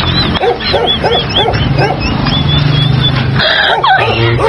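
Dog barking in a quick run of short, high barks, about three a second. A low steady hum runs underneath for a couple of seconds in the middle.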